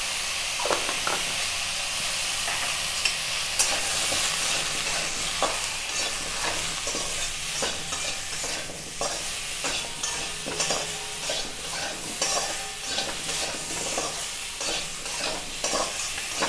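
Green mango pieces sizzling in hot oil in a metal kadai while a metal spatula stirs and turns them, with frequent scrapes and taps of the spatula against the pan, busier in the second half.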